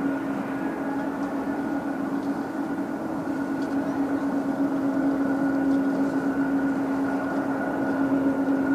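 Rolls-Royce Trent 1000 jet engines of a Boeing 787-8 running steadily at ground idle: a constant low hum with a fainter higher whine over a rushing noise.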